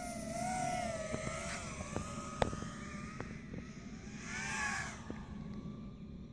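FPV racing quadcopter's brushless motors whining, the pitch wavering up and down with the throttle. About four and a half seconds in, the whine swells louder with a quick rise and fall in pitch, then fades. A sharp click about two and a half seconds in.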